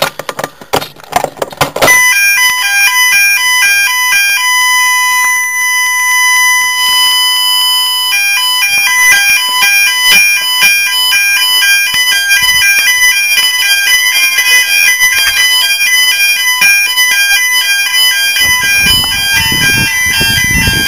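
A few clicks, then a Viper fire alarm sounder going off loudly in its standard alarm mode. It starts with a steady electronic tone and about six seconds later changes to a rapid pattern alternating between two tones. A low rumble comes in near the end.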